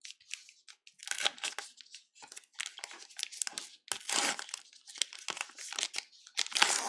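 Plastic trading card pack wrapper crinkling and tearing as gloved hands open it, in irregular crackles that are loudest about four seconds in and near the end.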